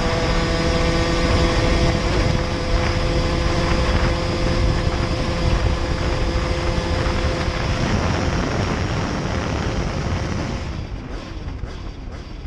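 Derbi moped's 70cc Airsal cast-iron two-stroke engine running at a steady high pitch under way, with wind on the microphone. About eight seconds in the steady engine note breaks up, and the sound fades away near the end.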